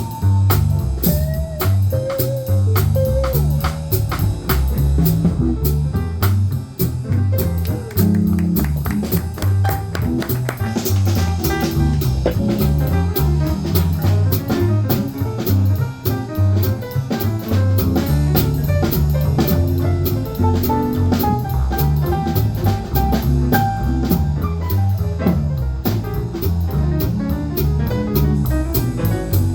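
Small jazz group playing live: a drum kit keeps steady time on the cymbals under a busy low bass line, with other instruments playing over it.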